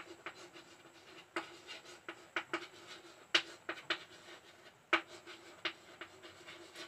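Someone writing by hand: quiet short scratching strokes at irregular intervals, a dozen or so, with brief pauses between them.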